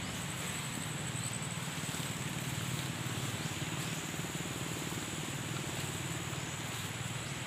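Steady high-pitched drone of insects, likely cicadas or crickets, over a low steady hum.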